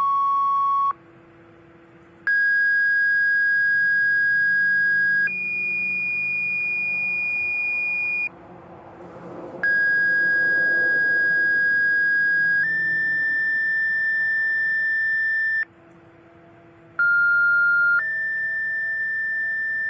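Siren-activation paging tones sent over the county dispatch radio channel: steady electronic beeps in pairs of different pitches, each tone one to three seconds long, jumping abruptly from one pitch to the next with short gaps between the pairs.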